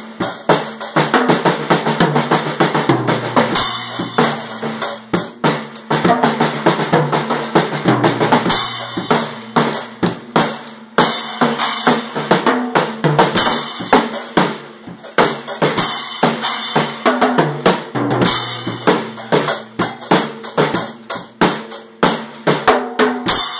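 Acoustic drum kit played fast: a dense run of snare, tom and kick drum hits, with cymbal crashes every few seconds, the last one near the end.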